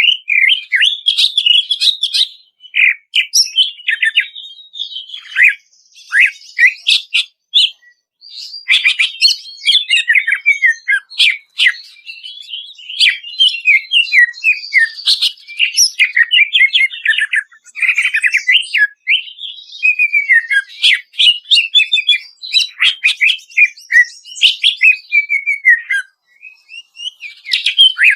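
Greater green leafbird (cucak ijo) singing: a fast, nearly unbroken run of whistled slurs and quick chattering notes, with a few short pauses.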